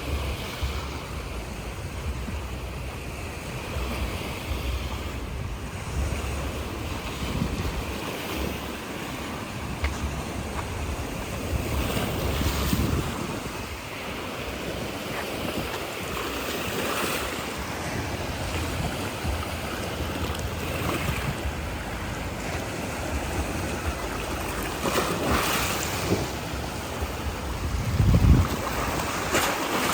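Sea waves washing ashore, each swell of surf rising and falling, with wind gusting against the microphone.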